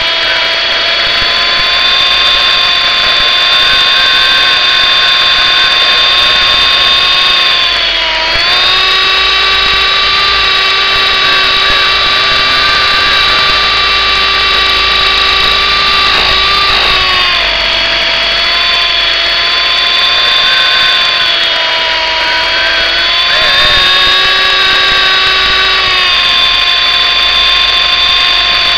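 Electric motors and rotor of an MJX F45 remote-control helicopter in flight, heard close up as a steady whine. The pitch dips and shifts several times as the throttle is changed.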